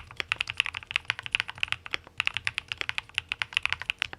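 Mechanical keyboard fitted with linear 'Biseon Toy' switches being typed on quickly, a steady run of crisp keystrokes, as a switch sound demo.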